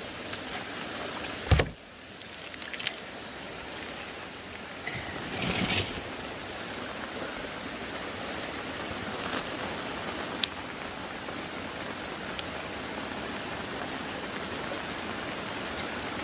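Steady rushing of a creek's flowing water. A sharp thump comes about a second and a half in, and a brief clatter follows around five and a half seconds in.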